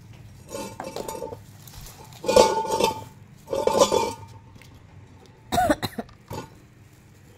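Handling noise of a steel ruler and a small chainsaw being moved and set down: three short bouts of metallic clinking with a faint ringing, then a sharp knock about five and a half seconds in and a smaller one just after.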